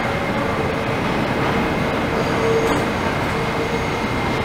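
New York City subway train moving on the track beside the platform: a steady rumble of wheels on rail, with a faint high wheel squeal coming and going.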